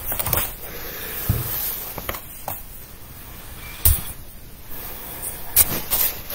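Handling noise close to the microphone: scattered short knocks and rustles as a person reaches down and sits back, over a faint hiss. The loudest knock comes about four seconds in.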